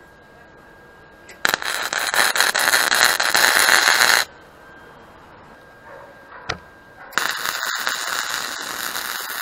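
Electric arc welding on steel chain links: two bursts of dense crackling arc noise, each about three seconds long, with a short sharp click between them.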